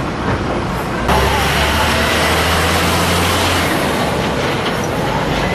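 Loaded heavy tipper truck driving past on the road: a low engine hum over loud road and traffic noise, which changes abruptly about a second in.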